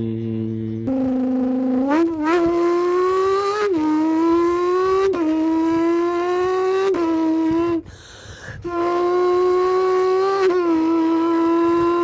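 A man's voice imitating a V10 supercar engine with his mouth: a steady idle buzz, then repeated revs that climb slowly and drop back quickly, a short breath about eight seconds in, then a held, steadier engine note.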